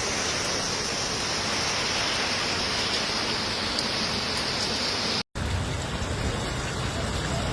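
Heavy rain pouring down in a dense, steady hiss. About five seconds in the sound cuts out for an instant and comes back as a lower, rumbling wash of water and wind noise.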